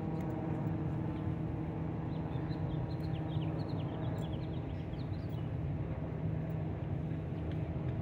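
Steady hum of an idling engine. A quick run of small bird chirps comes in a few seconds in.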